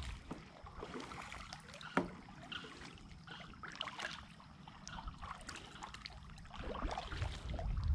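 Kayak paddling: quiet strokes with water trickling and dripping off the paddle, and a single sharp knock about two seconds in.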